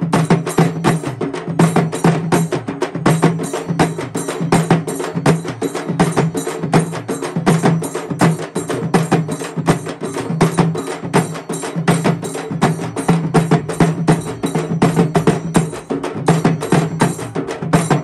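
A group of Tamil tapou frame drums beaten with sticks in a fast, steady rhythm of sharp, ringing strokes, with a barrel drum, for a procession to a fire-walk.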